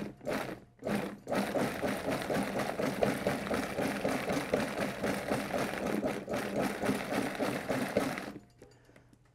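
Food processor chopping avocados with cocoa powder, sugar and almond milk. It gives a couple of short pulses, then runs steadily for about seven seconds, stopping abruptly about eight seconds in.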